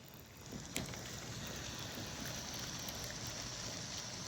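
Wind buffeting the microphone with a steady outdoor hiss, and a single sharp click about three-quarters of a second in.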